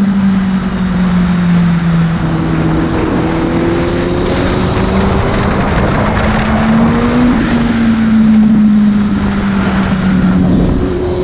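Suzuki GSX-S750's inline-four engine running at speed, heard from the rider's seat. Its note dips early, climbs through the middle as the bike speeds up and eases off towards the end as it slows, over steady wind rush.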